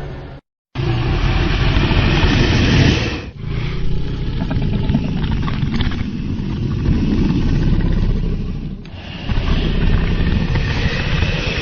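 Dragon sound effects: deep, growling creature roars, three long ones in a row after a short silence near the start.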